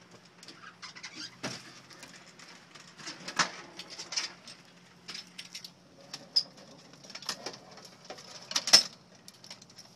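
Irregular clicks, knocks and rattles of a helicopter's side-loading stretcher being unlocked and slid forward out of the cabin, with the sharpest knocks about three and a half and nearly nine seconds in.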